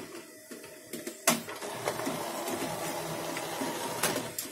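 HP LaserJet Pro M132 scanner carriage travelling along its toothed rack, its drive motor and gears running with a crackling buzz that greasing the rail and the pressure cam has not cured. A sharp click about a second in and another near the end.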